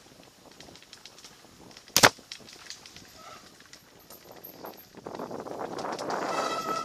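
Mountain bike ridden over a dirt trail, heard from a camera on the bike: a single sharp knock about two seconds in as the bike jolts. From about five seconds a louder rough rattle of tyres and bike over the rough ground follows, with a high steady whine near the end.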